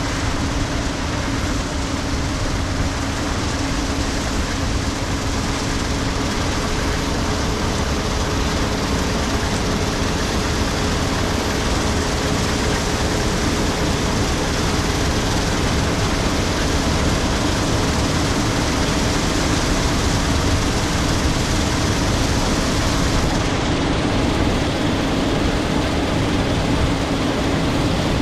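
Case IH 7230 Axial-Flow combine harvesting soybeans at close range: a loud, steady running noise with a constant low drone.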